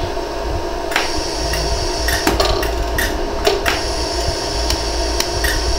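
LaserStar iWeld 60-joule pulsed laser welder firing single pulses: about ten sharp ticks at irregular intervals, starting about a second in, over a steady hum. The pulses are smoothing over a freshly filled weld on a silver bracelet jump ring.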